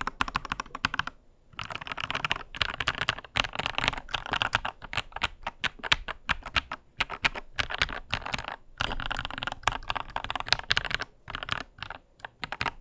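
Typing on a Lychee G80 75% mechanical keyboard with JWK Black linear switches: fast runs of keystrokes with short pauses, the runs thinning to scattered presses near the end.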